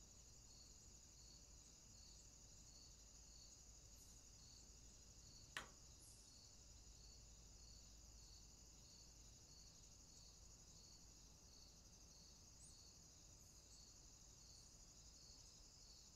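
Faint insects in the grass: a steady high-pitched trill with a regular pulse. One sharp click about five and a half seconds in.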